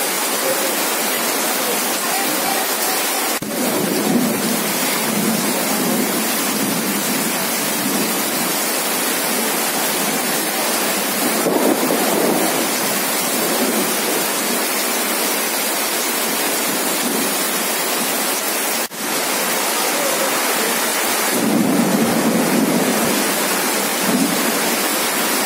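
Heavy rain pouring down, a steady dense hiss that briefly drops out twice.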